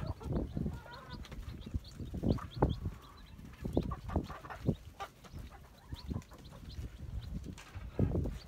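Baby chicks cheeping repeatedly in short high chirps, with low taps and thuds as hens and chicks peck at a watermelon slice on the ground.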